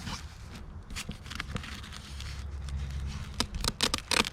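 Handling of a fabric travel bag: rustling and scattered light clicks as its stiff inner wall is felt and worked loose, with a quick run of sharper clicks and knocks near the end. A low hum sits underneath for about a second and a half in the middle.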